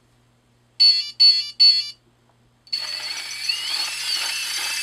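RC crawler's Holmes Hobbies electronic speed control playing its power-on tune through the motor: three short electronic beeps about a second in. A little over two seconds later the electric motor and drivetrain start turning at very low speed with a steady whine and tones that glide up and down, running smoothly without stuttering.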